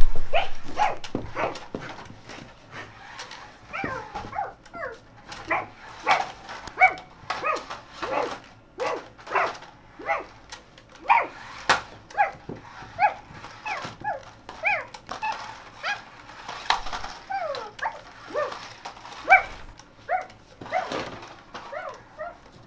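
A child yipping and whimpering in imitation of a small dog: a long run of short calls that bend up or down in pitch, about one or two a second, with light knocks among them.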